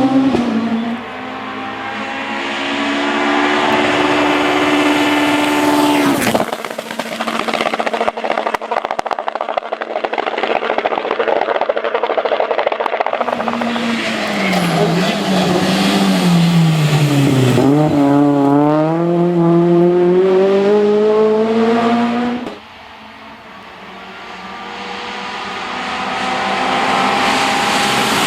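Rally cars at full race pace, engines revving hard and changing gear, dropping in pitch under braking and climbing again as they accelerate away, with tyre and road noise. The sound changes abruptly twice, as one car gives way to the next.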